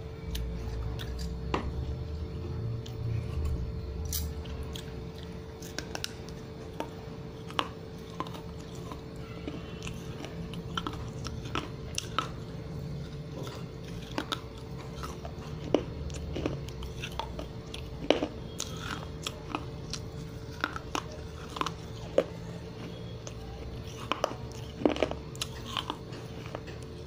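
Biting and chewing pieces of a wet terracotta kulhad (clay cup) close to the microphone: a long string of sharp, irregular crunches and cracks over a steady faint hum.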